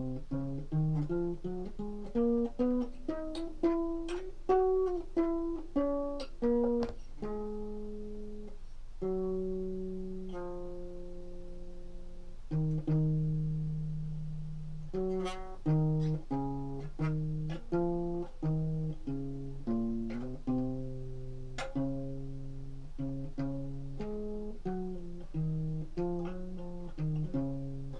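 Guitar being played solo, plucked single notes in quick runs, each fading after it is struck, with a slower stretch of longer held low notes in the middle.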